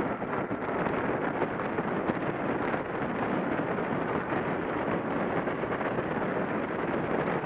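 Steady rush of wind over the microphone of a camera on a track bike riding at about 28 mph, mixed with rolling noise from tyres on the wooden velodrome boards.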